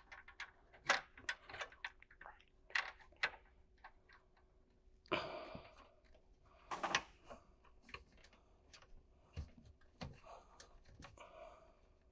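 Faint, irregular clicks and small scrapes of a metal retaining ring being threaded by hand onto a plastic threaded fitting against a sheet-metal cabinet, with a couple of short scraping rasps about five and seven seconds in.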